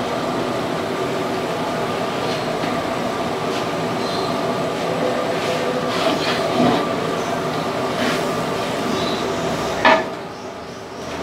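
A long metal ladle knocks and scrapes against a large aluminium cooking pot as thick tomato masala with herbs is stirred, over a steady roar. The loudest knock comes near the end, after which the roar drops away.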